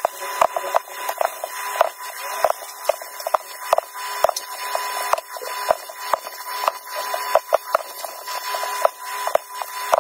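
Sped-up sound of cookie dough being pinched off and rolled into balls by hand, with quick irregular taps as the balls are set down on the tabletop, over a faint steady tone.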